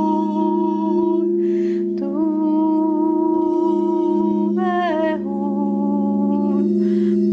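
Crystal singing bowls ringing in a steady, layered drone while a woman tones wordless vowels over them, holding long notes and stepping between pitches. Two brief breaths in break the voice, about one and a half seconds in and near the end.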